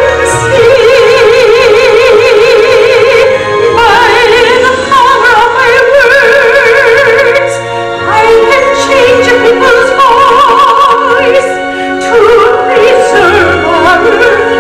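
Classical, operatic-style singing: a high voice holding long notes with a wide vibrato, moving from note to note.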